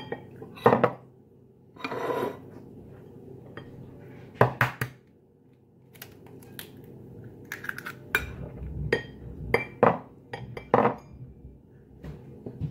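A glass, a metal spoon and ceramic bowls and plates clinking and knocking as batter is made, including an egg cracked over a bowl of flour. The clinks come irregularly, busiest in the second half.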